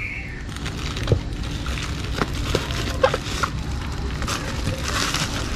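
Plastic fish-shipping bags crinkling and rustling as they are handled and unwrapped, with scattered sharp crackles and clicks that thicken about five seconds in.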